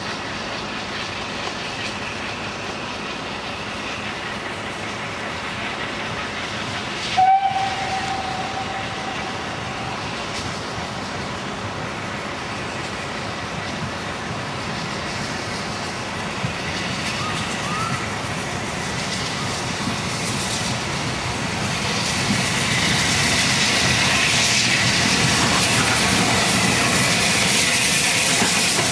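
Four-cylinder Southern Railway Lord Nelson class steam locomotive No. 850 pulling away with its train under steam, with a steady hiss. About seven seconds in it gives one whistle blast lasting about three seconds. The exhaust and steam grow louder over the last several seconds as the engine comes closer.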